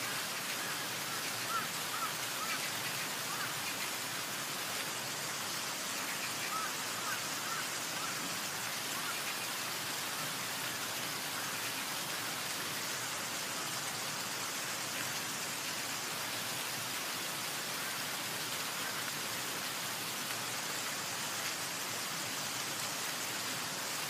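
Waterfall: a steady rush of falling and splashing water, even and unchanging throughout.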